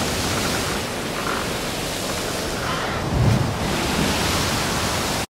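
Heavy rain pouring steadily onto paving and foliage, a dense, even hiss. Wind buffets the microphone about three seconds in.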